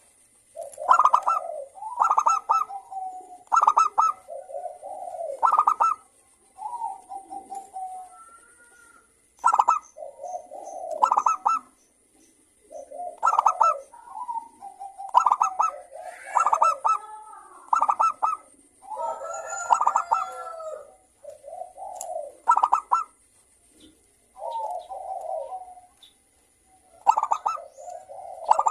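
Zebra dove (perkutut) cooing: phrase after phrase of quick staccato cooing notes, each phrase about a second long with short pauses between, a clear, crisp-voiced male song used as a lure to set other perkutut calling.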